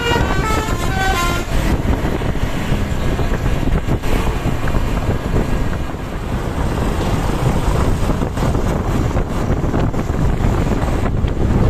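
A bus's multi-tone telolet horn plays a quick tune of stepped notes, breaking off about a second in. After that comes a steady noisy rumble of vehicle engine and road noise.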